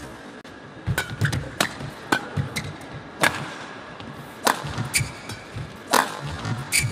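Badminton rally: sharp racket strikes on the shuttlecock, about one a second, the loudest a jump smash near the end, with brief squeaks of court shoes on the mat.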